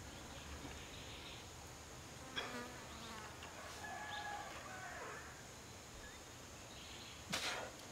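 A flying insect buzzing, its pitch wavering, through the middle of the clip. A short scuffing noise comes near the end.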